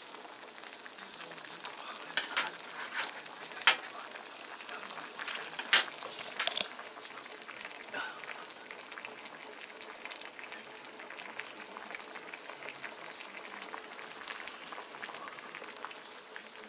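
A pot of oden broth boiling at a steady bubble, with a few sharp knocks over the first several seconds.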